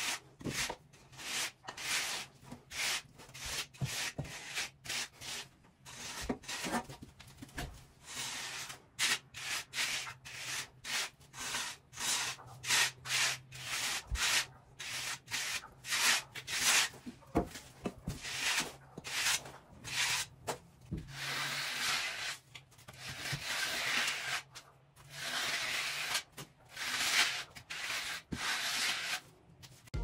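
Wooden screed board being sawed back and forth across the forms to strike off wet concrete: a run of rough scraping strokes, about two a second, with some longer strokes later on.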